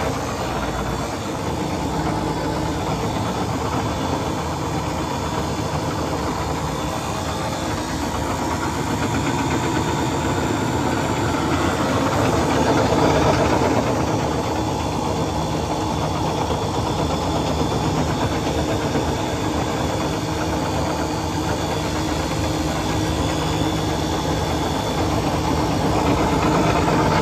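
Custard machine's refrigeration compressor running steadily, a constant mechanical hum, with suction pressure low and discharge temperature high: the system is short on performance, with a bubbling sight glass.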